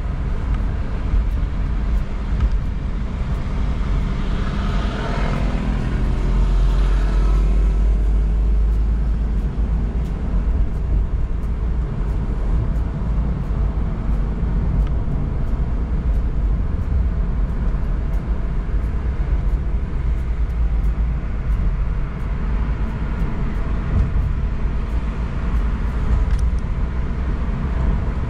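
Steady engine and tyre rumble heard from inside a moving Toyota's cabin, with a brief swell of louder road noise about four to eight seconds in.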